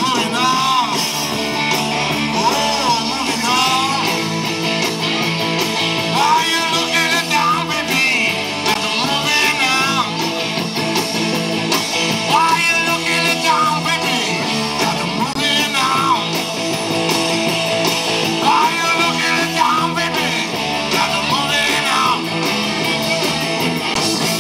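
Live rock band playing: amplified electric guitars and a drum kit, with a lead vocal sung into a microphone over them.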